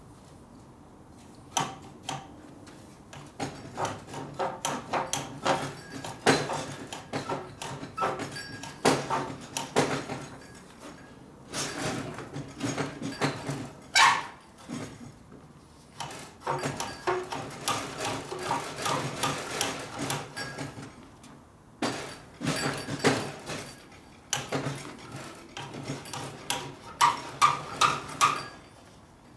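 Clinking, knocking and scraping of a steel bar being worked back and forth inside the end of a motorcycle exhaust pipe held in a vise, stretching the pipe end oval. The strokes come in quick irregular runs with a few brief pauses.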